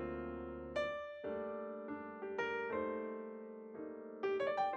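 Background piano music: notes and chords that ring and fade, with a quick run of higher notes near the end.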